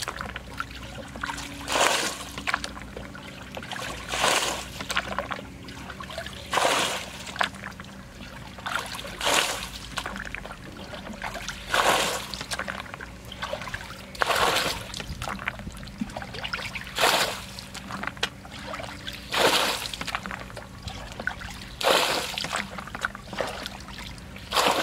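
Muddy water being bailed out of a shallow pool with a plastic bucket: a bucketful splashing and pouring out about every two and a half seconds, some ten times in a row.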